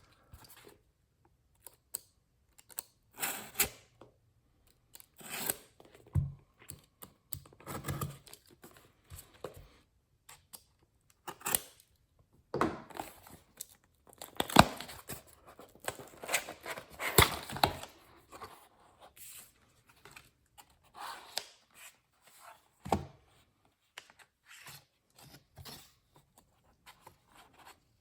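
Packaging being torn open and handled by hand: irregular bursts of ripping and rustling with small knocks and clicks between them.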